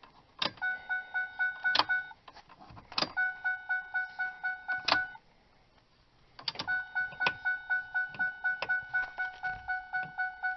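1997 Ford Explorer's dashboard warning chime dinging rapidly, about three dings a second, in three runs broken by short gaps, with sharp clicks where it starts and stops.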